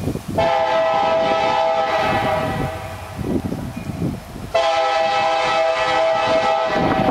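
CSX diesel locomotive's air horn sounding two long blasts, each a little over two seconds, the second starting about four and a half seconds in, over a low rumble.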